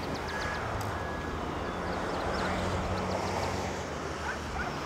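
Outdoor ambience: a steady rush of wind and distant traffic with a low rumble. A vehicle's reversing alarm beeps twice in the first second and a half, and small high chirps, like birds, come and go.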